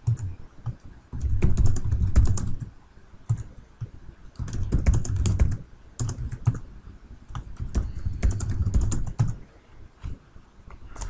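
Typing on a computer keyboard: quick runs of keystroke clicks in several bursts with short pauses between, as a short command is typed and entered four times over.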